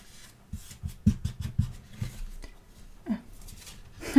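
Handling noise from a CD single's paper booklet and ticket sheet being shuffled and pressed against the case: a run of small clicks, rustles and soft knocks, then a single sharp tap near the end.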